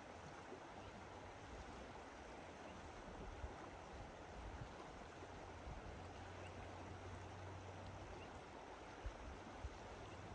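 Steady, faint rush of the Lower Deschutes River flowing nearby, an even hiss of moving water. A couple of soft low thumps come near the end.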